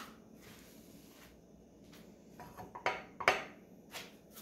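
Kitchen handling sounds: a brief faint rustle, then a quick run of clicks and knocks of dishes or utensils being handled on the counter, the sharpest about three seconds in.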